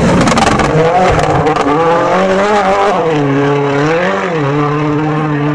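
Toyota Yaris WRC rally car's turbocharged 1.6-litre four-cylinder engine at full throttle as the car passes close by, with a burst of sharp crackles in the first second or so. The engine note then rises and dips a couple of times before holding steady as the car pulls away.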